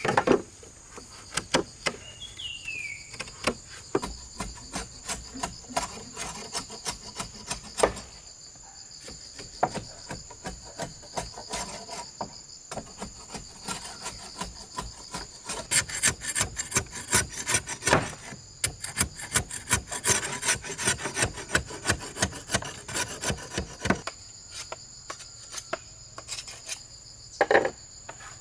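A hand tool rasping on wood in rapid repeated strokes, in runs broken by a few short pauses. A steady high-pitched insect chorus of cicadas or crickets drones underneath.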